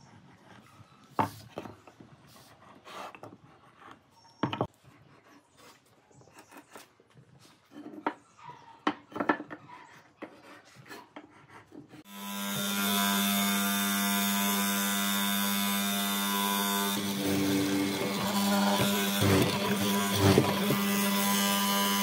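Light knocks and clicks of pine pieces and marking tools handled on a workbench. About halfway through, a benchtop hollow-chisel mortiser's motor starts and runs with a steady hum. In the last few seconds the chisel and auger bore into a pine leg, adding a rougher cutting noise.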